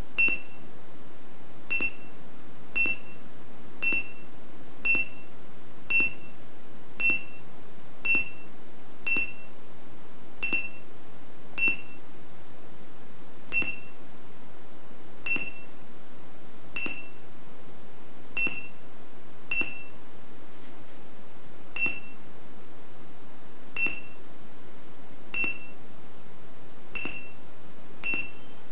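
Short high-pitched beeps from a 125 kHz RFID reader, one beep each time it reads the tag card. They come about once a second at first, then further apart, every one and a half to two seconds.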